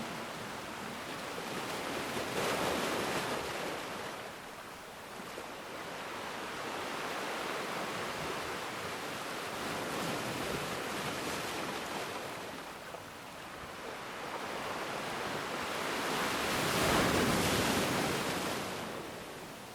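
Ocean surf: waves breaking and washing in as a rushing noise that swells and fades in slow surges about seven seconds apart, the loudest near the end.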